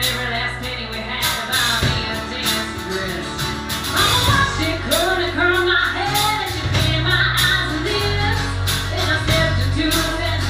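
Live band playing with drums, bass guitar and electric guitar, with a woman singing into a microphone from about four seconds in.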